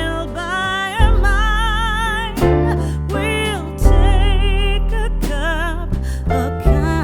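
Background music: a wavering melody with heavy vibrato over deep bass notes that change every second or so.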